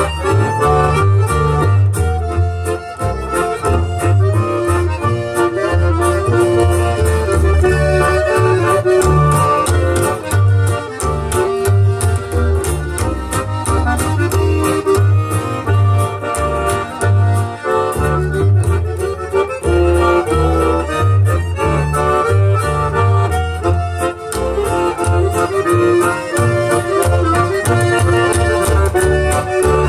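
Folk band playing a Swedish bridal march: accordion carries the melody over steady, rhythmic double bass notes and acoustic guitar.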